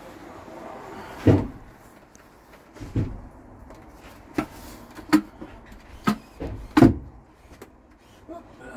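Wardrobe doors on concealed cabinet hinges being handled, making about six separate wooden knocks and clunks. The loudest come about a second in and just before the end.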